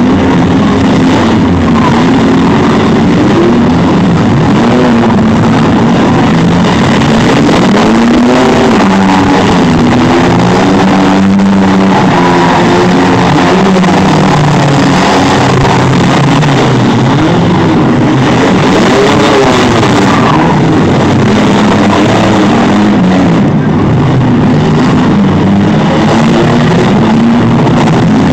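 Several demolition derby vehicles (mini-vans, trucks and SUVs) with their engines running loud at once, revving up and down as they drive and ram each other.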